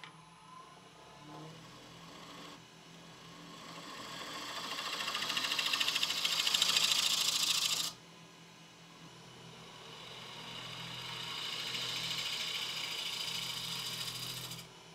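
Wood lathe spinning a sycamore blank while it is worked in two long passes of several seconds each. Each pass is a hiss that builds and then stops sharply as the contact ends, over the steady hum of the lathe.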